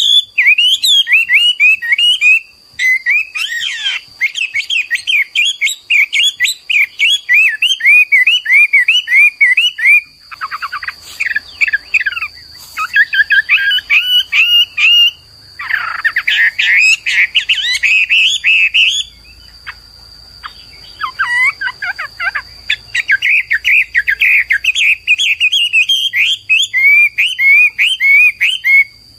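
Chinese hwamei (Garrulax canorus) singing: long, loud runs of rapid, varied whistled notes that glide up and down, broken by a few short pauses.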